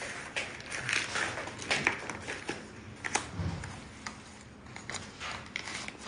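Irregular rustling, crinkling and light taps of fiber optic one-click cleaners in plastic sleeves and their cardboard boxes being handled and set down on a table.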